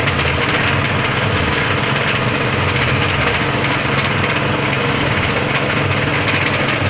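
Type D22 pellet mill running steadily: a continuous mechanical running noise over a low hum.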